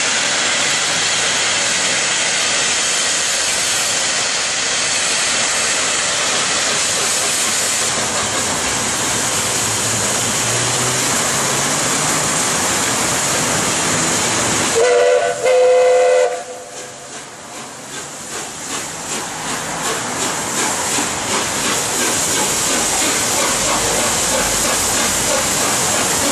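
Peppercorn A1 Pacific steam locomotive Tornado: a loud, steady hiss of steam, then two short whistle blasts about fifteen seconds in. After the whistle the hiss drops and the exhaust beats of the engine pulling away start slow and come gradually quicker.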